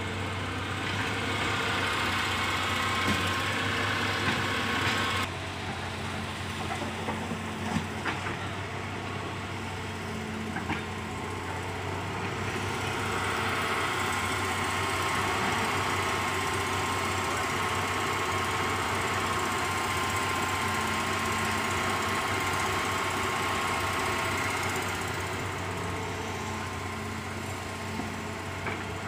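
Hitachi hydraulic excavator working, its diesel engine running steadily under a high hydraulic whine. The whine changes pitch about five seconds in and again near the middle as the machine swings and digs. A few sharp knocks are heard along the way.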